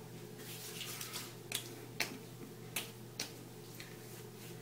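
Hands patting and slapping witch hazel toner onto a freshly shaved face and neck: a series of light, irregular slaps, about seven in all.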